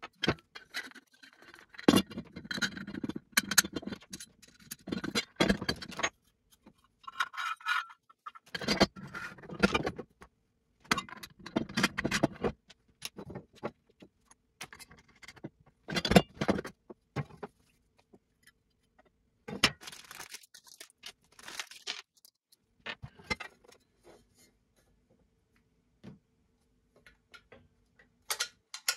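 Loose steel bolts, washers and nuts clinking and jangling while steel TV-mount brackets and tubes knock against a wooden workbench during hand assembly, with some crinkling of the plastic hardware bag. The knocks and jingles come in irregular bunches, sparser after the middle.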